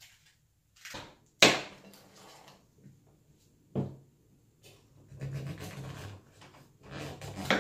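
A knife slicing a raw pumpkin on a cutting board: three sharp knocks as the blade goes through and hits the board, with scraping and rubbing between the cuts.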